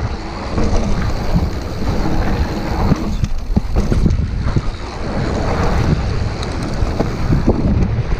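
Wind rushing over the microphone of a Scott Genius mountain bike rolling fast down a dirt trail, with tyre noise on the loose dirt and the bike rattling and knocking over bumps.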